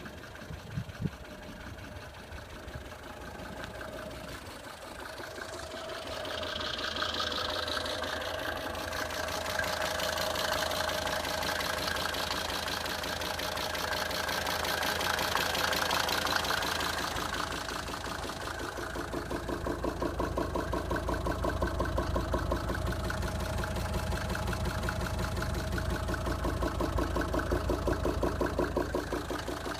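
Mercedes 190D 2.5 Turbo five-cylinder diesel idling, with a rhythmic knock that gets heavier in the last part. The owner traces the strange knock to the air intake on the right wing, and a new timing chain tensioner has not cured it.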